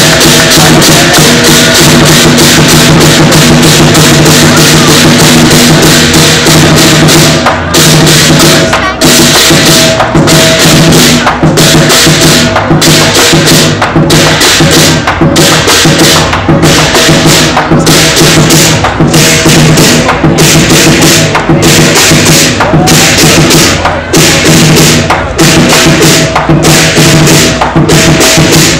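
Lion dance percussion ensemble of drum, gongs and cymbals playing live: a continuous clashing roll with ringing gong tones, which settles into a steady beat with a short break a little over once a second from about seven seconds in.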